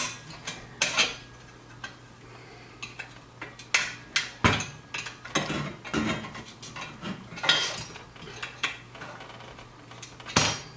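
Screwdriver scraping and clinking against a metal exhaust slip ring as the ring is pried open and worked around the flared end of an S&S header pipe. Irregular metal clinks and scrapes, with one sharper knock about four and a half seconds in.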